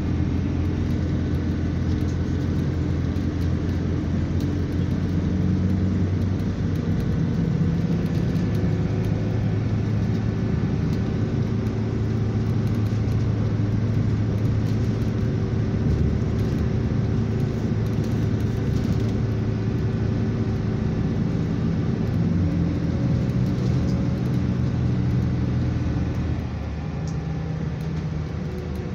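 Engine and road noise heard from inside a moving vehicle: a steady low drone whose engine tones shift in pitch several times. It gets a little quieter near the end.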